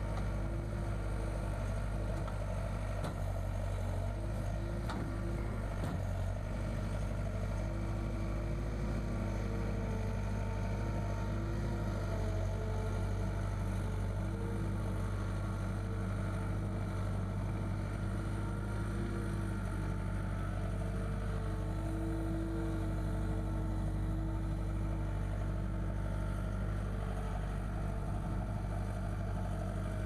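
John Deere 320 skid steer loader's diesel engine running steadily as it drives across the yard: a constant low drone, with a higher tone that comes and goes.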